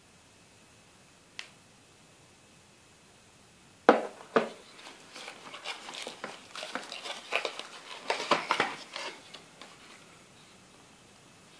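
Cardboard phone box being handled: a faint click, then two sharp knocks about four seconds in, followed by several seconds of tapping, scraping and rustling as the box is worked open.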